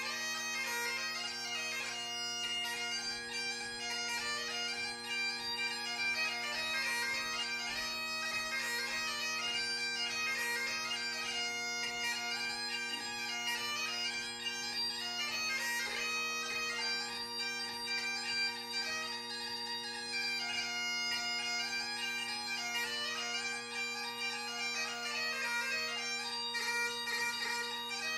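Great Highland bagpipe played solo: the drones hold one steady chord throughout while the chanter plays a quick melody of rapidly changing notes.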